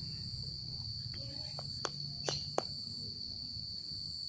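A steady high-pitched insect drone, with a few sharp clicks in the middle stretch.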